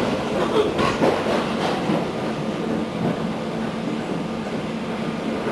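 Interior of an EN57 electric multiple unit running, heard inside the carriage: wheels clacking over the track a few times in the first second or two, over a steady rolling rumble with a low hum.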